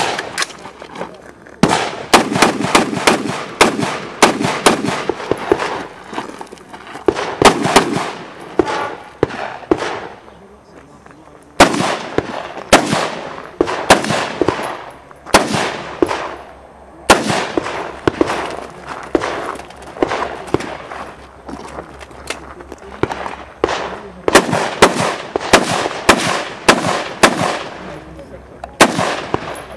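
Semi-automatic rifle firing many sharp shots in quick strings of two to several, with a gap of about a second and a half about a third of the way in.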